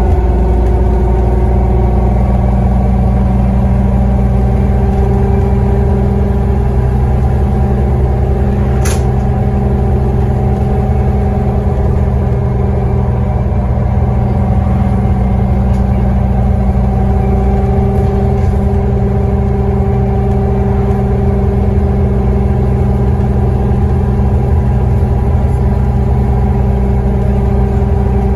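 Scania N94UD double-decker bus heard from inside the passenger saloon while driving along: its diesel engine pulls steadily under a loud, steady whine from the differential. A single sharp click about nine seconds in.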